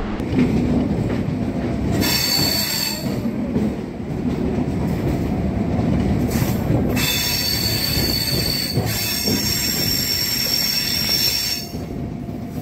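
Chennai suburban electric train running along the track with a steady rumble, its wheels squealing in a high-pitched whine about two seconds in and again for several seconds from about seven seconds.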